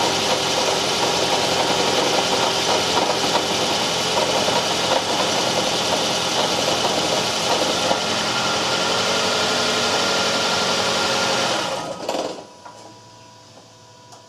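2010 Toyota Camry Hybrid's 2.4-litre four-cylinder petrol engine running after a start, with the loud start-up noise the owner is showing. It shuts off suddenly about twelve seconds in, leaving only a faint steady hum.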